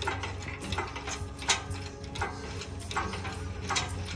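Sharp metallic clicks and clanks, irregular, about two a second, from a hydraulic engine hoist being worked while its chain carries an engine and transmission, over a steady low hum.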